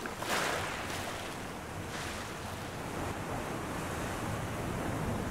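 Ocean surf: waves washing ashore in a steady rush, swelling briefly near the start.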